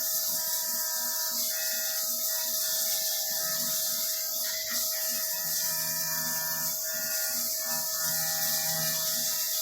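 CNC milling machine cutting 7075 aluminium: a steady spindle tone under a continuous high hiss and a rasping cutting noise.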